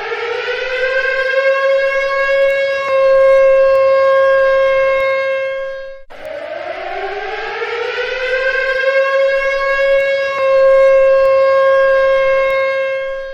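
Civil defense siren sounding an attack warning. Its pitch rises over a few seconds, holds steady, then cuts off abruptly about six seconds in, and the same rise-and-hold cycle starts again straight after.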